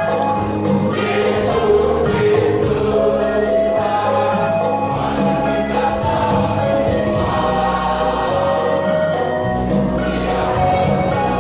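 Church choir singing a sustained, continuous passage.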